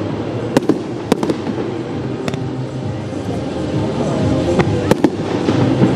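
Fireworks display: shells bursting with about half a dozen sharp bangs at irregular intervals over a continuous background din.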